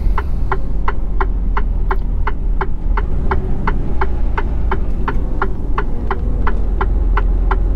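Truck's turn indicator ticking steadily, a few ticks a second, over the low running rumble of the diesel engine, heard inside the cab as the truck turns in.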